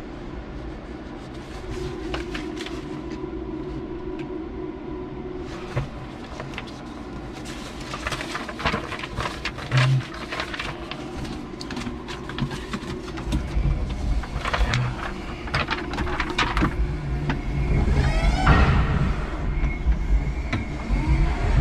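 Cab of a 5-ton electric forklift truck: a steady low hum with repeated knocks and rattles in the middle, the low rumble growing louder from about two-thirds of the way through, and a brief rising whine near the end.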